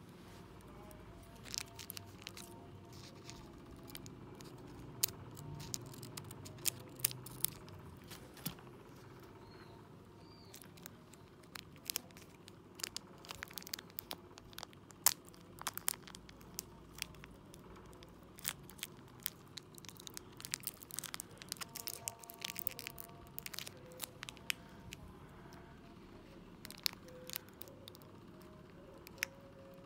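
A tiny foil-plastic packet of miniature sand mix being picked at, torn open and crinkled between fingers: a stream of irregular sharp crackles and crinkles.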